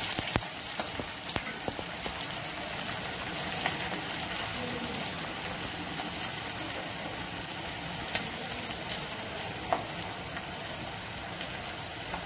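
Sliced onions sizzling steadily in hot oil in a kadhai, in the early stage of being fried until crisp. Now and then the steel slotted spoon stirring them gives a sharp click against the pan.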